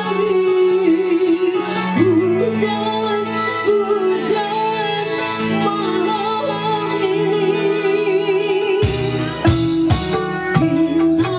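Live dangdut band music played through a PA: a keyboard melody over a bass line, with a woman singing into a microphone. Hand drums come in more strongly near the end.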